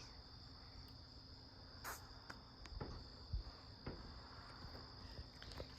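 Crickets chirping in a steady high trill, with a few faint distant firework pops and thuds about two to four seconds in.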